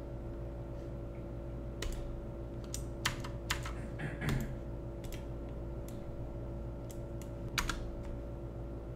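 Irregular clicks and key presses on a computer keyboard, about a dozen spread unevenly, over a steady hum.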